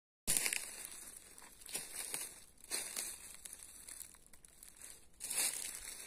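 Footsteps crunching through dry fallen leaves, an uneven step every second or so, the loudest crunch about five seconds in.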